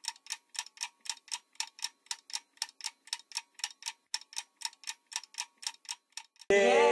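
Fast, even ticking, about four to five ticks a second, with a faint steady tone beneath it; it stops abruptly near the end, where a sustained voice comes in.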